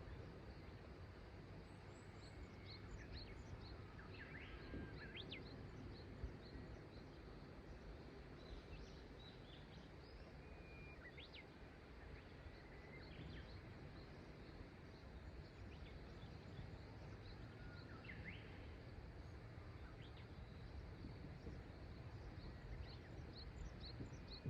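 Faint riverside ambience: a low, steady rush of flowing river water with small birds calling throughout, in runs of short high chirps and a few quick rising calls.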